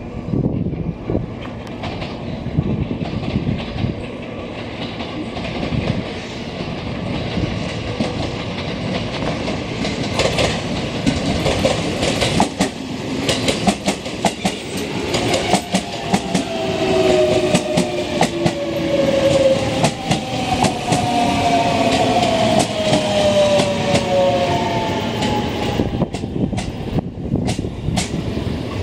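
JR West electric commuter train pulling into the station. Wheels click over the rail joints while the traction motors whine, several tones falling in pitch as the train slows.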